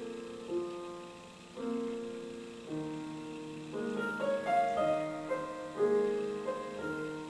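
Slow background piano music with sustained chords that change about once a second and a soft melody above them in the middle.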